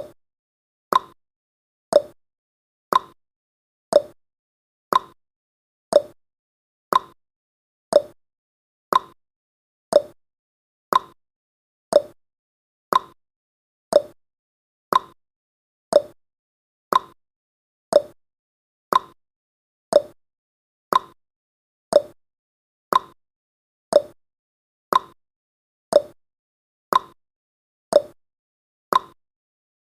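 Countdown timer's ticking sound effect: a short, sharp clock-like tick exactly once a second, evenly spaced, with silence between ticks.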